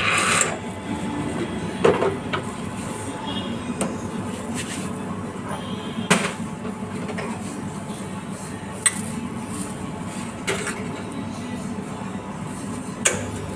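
Coffee vending machine running with a steady hum while brewing, with a few sharp clinks of cups and dishes.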